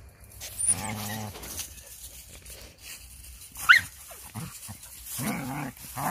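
Dogs playing rough together: low growling about a second in, a short high yelp just before the middle, and more growling toward the end.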